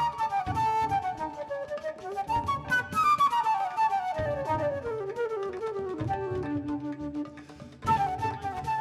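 Live ensemble music in which a woodwind plays a melody of long descending runs over a pulsing low accompaniment.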